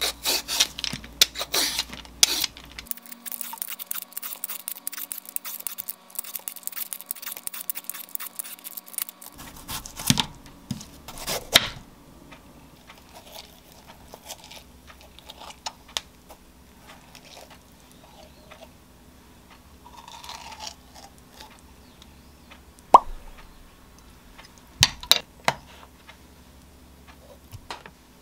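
Korean melon being peeled with a Y-peeler: quick rasping strokes of the blade over the rind. The melon is then cut with a knife and scraped hollow, in quieter scraping with a few sharp clicks near the end.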